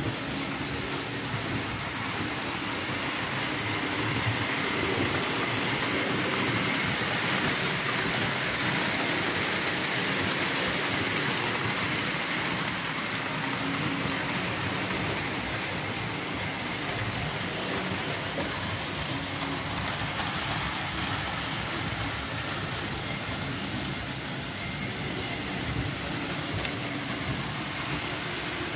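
Model train running on sheet-metal track: a steady clattering rumble of the wheels on the tinplate rails and track bed.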